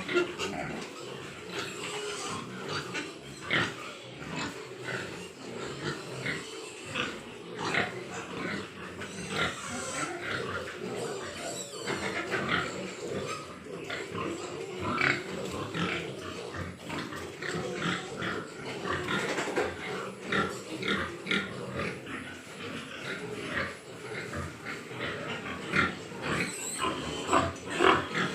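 Many Large White Yorkshire pigs in a farm pen grunting and squealing, with short calls overlapping one another throughout.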